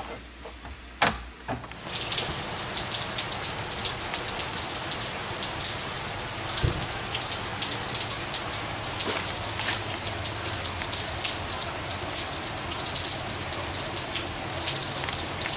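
Heavy rain falling on a street, pavement and porch, a steady hiss of splashing drops that comes in about two seconds in, after a short quieter moment with a single click.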